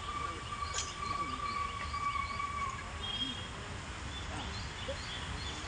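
Open-air playground ambience: faint distant voices over a low steady rumble, with one long, even whistle-like tone that fades out about three seconds in and a few short higher chirps.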